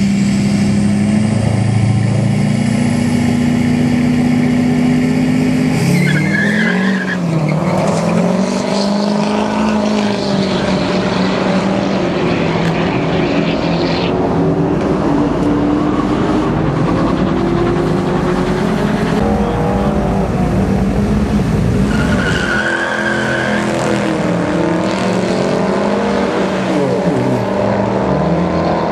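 A diesel pickup truck and a small hatchback racing on a drag strip: engines running at the start line, then launching about six seconds in with a short squeal, the engine pitch climbing and dropping again and again as they accelerate down the strip.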